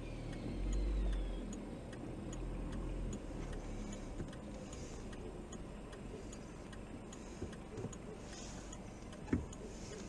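Steady, evenly spaced ticking, somewhat under two ticks a second, over the low rumble of an idling car engine, heard inside the stopped car; a single short knock near the end.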